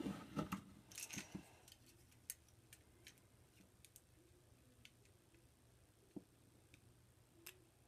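A wooden snap mousetrap being handled and set by hand: a quick run of small clicks and taps at first, then scattered faint single clicks from its metal bar and catch.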